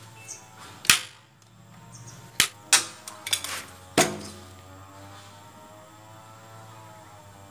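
Metal lid of a paint tin being prised off with a small tool: a sharp metallic click about a second in, then a quick run of clicks and pops as the rim gives way.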